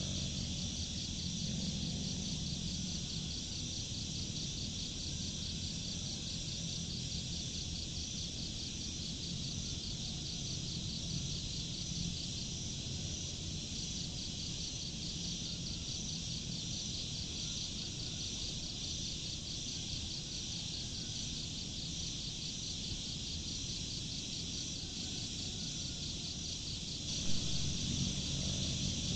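Steady chorus of crickets chirping in a fast, even pulsing trill, over a low steady background noise.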